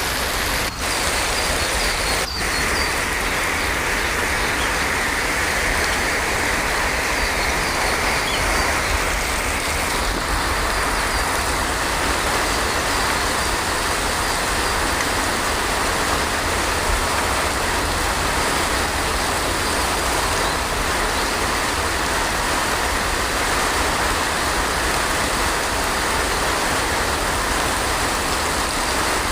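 Heavy rain falling steadily, a dense even wash of noise with two brief dips in level in the first few seconds.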